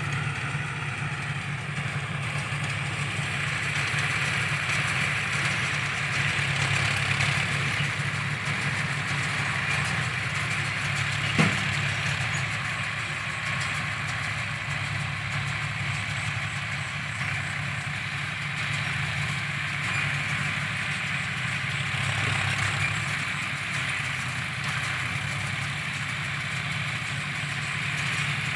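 John Deere tractor engine running steadily while driving a round baler, with a steady mechanical hiss over the engine hum. A single sharp knock comes about eleven seconds in.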